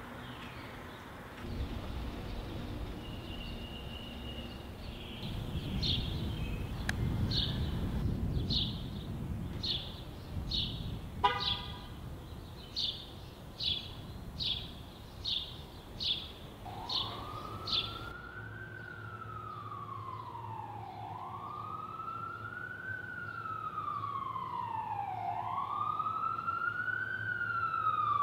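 Street ambience with low traffic rumble, then a run of short high chirps about every half second. About two thirds of the way in, an emergency vehicle siren begins wailing, its pitch rising and falling slowly about once every four seconds and getting louder near the end.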